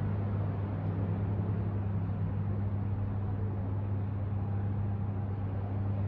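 Steady city traffic noise from the streets below: an even hiss with a constant low hum underneath, no single vehicle standing out.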